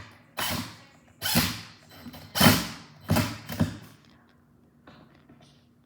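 Screwdriver turning fasteners tight into a flat-pack cabinet's panels: five short turning strokes in the first four seconds, then quieter.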